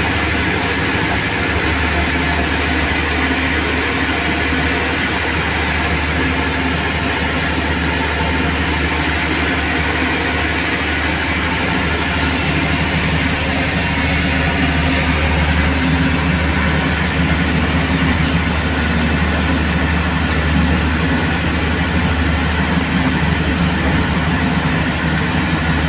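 Pushback tug's engine running steadily under load with a low drone as it moves a Boeing 777-300ER back on its towbar, growing a little louder in the second half.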